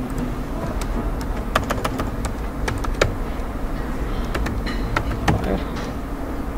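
Computer keyboard keys clicking in a short, irregular run of typing, then a few scattered clicks later on, over a steady low hum.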